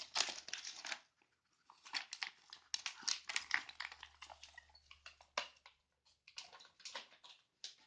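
Wrapping paper crackling and tearing in irregular bursts as a chihuahua bites and tugs at it. There is a short lull about a second in, and the crackles thin out after about six seconds.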